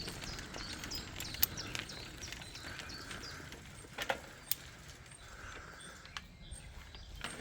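Birds chirping and calling in the background, with a few sharp steps or knocks, the loudest about a second and a half in and about four seconds in.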